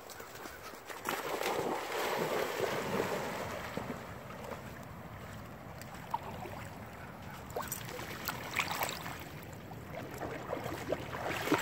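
Dogs wading and swimming through shallow river water, splashing and sloshing. The water noise is strongest in the first few seconds, then softer, with a few small splashes later on.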